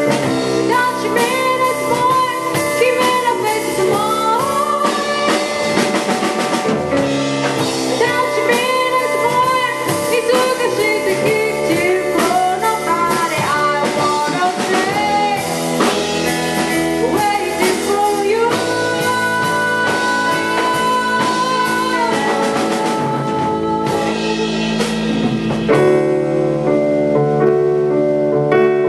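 A live band playing: electric guitar, electric bass, drum kit and keyboard, with a lead melody of bending, wavering notes. Near the end the drums thin out and sustained keyboard chords carry on.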